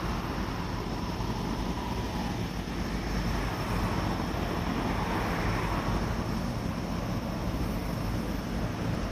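E531 series ten-car electric commuter train running past on the line below, a steady rumble of wheels on rail, with a faint whine that fades in the first two seconds.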